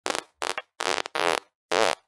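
Five fart sounds in quick succession, each a short pitched blast with silence between. The longest lasts about a third of a second.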